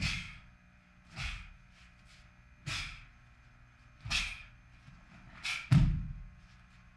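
A Taekwon-Do practitioner working through a pattern: a short whoosh with each technique, about every second and a half, most of them with a dull thud of the feet on the floor. The loudest, near the end, is a heavy stamp.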